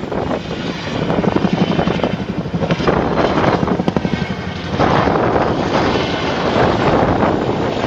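Helicopter flying past with the rapid beat of its rotor blades over turbine noise, getting louder about five seconds in.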